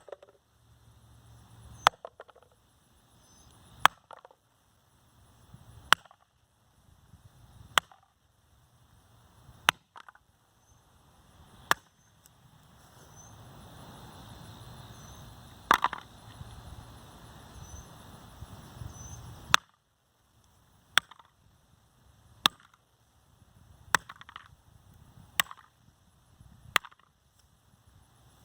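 Hammer striking a Maxtor hard drive, about a dozen sharp separate knocks spaced roughly two seconds apart, coming a little quicker in the second half. The blows are meant to jolt a failed drive's platters back into place.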